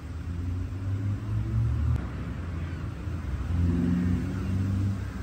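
Low hum of a motor vehicle's engine. It cuts off abruptly about two seconds in and comes back louder about a second and a half later.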